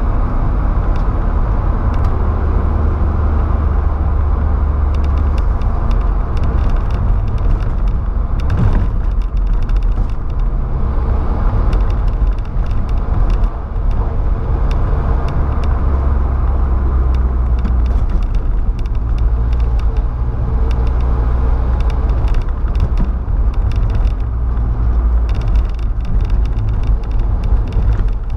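Volkswagen Saveiro pickup driving at road speed, heard from inside the cabin: a steady low engine drone with tyre and road noise, and scattered light ticks. The low drone eases for a stretch in the middle and then comes back stronger.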